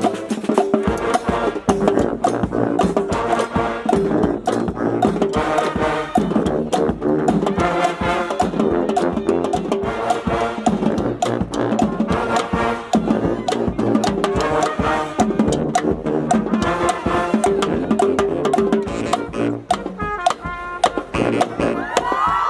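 Brass band playing: trumpets and trombones over drums keeping a steady beat.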